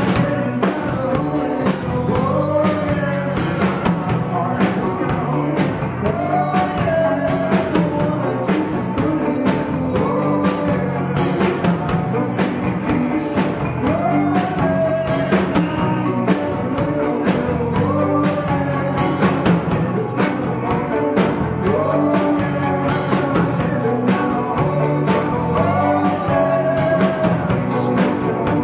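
Live rock band playing: electric guitars, electric bass and drum kit, with a man singing lead in phrases that come every few seconds over a steady drumbeat.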